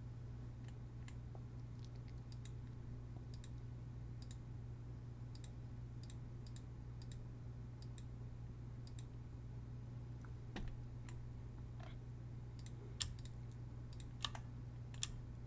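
Scattered computer mouse clicks, the sharpest few near the end, over a steady low hum.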